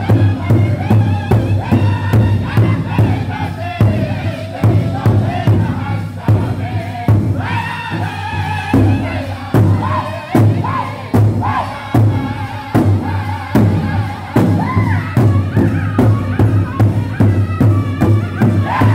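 Powwow drum group singing an intertribal song: several men singing loudly together in high, wavering voices over a steady beat struck in unison on one large drum.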